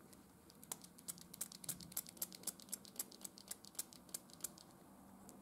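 Faint, quick light clicks, about four or five a second for roughly four seconds, of typing on a smartphone's touchscreen keyboard.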